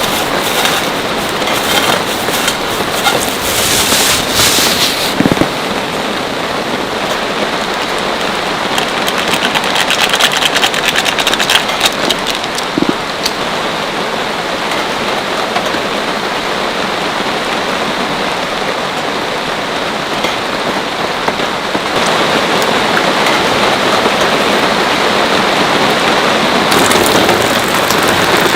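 Heavy rain falling steadily, with dense crackling drops striking a nearby surface; the patter is sharper for the first few seconds and again near the end.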